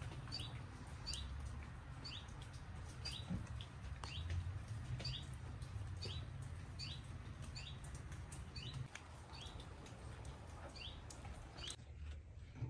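A single small bird calling over and over, a short high chirp about once a second, over a faint steady low rumble. The calls stop about a second before the end.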